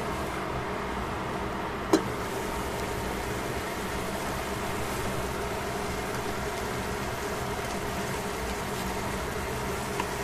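Vegetables cooking in a stainless steel pan over a steady humming background. A sharp metallic clank about two seconds in as the glass lid comes off, then soft sizzling as chopsticks stir the vegetables, with a small click near the end.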